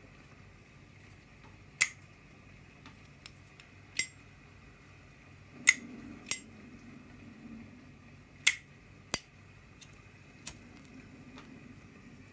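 Zorro flip-top lighter, a Zippo-style metal lighter, its lid clacking open and shut: six sharp metallic clicks, two pairs of them about half a second apart, and a fainter click near the end.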